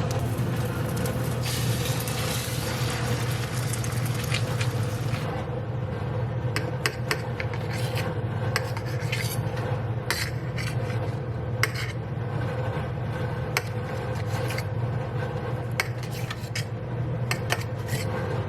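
A utensil scraping and stirring in a pan, with scattered clinks of metal on cookware, over a steady low hum. A hiss sits under it for about the first five seconds, then stops.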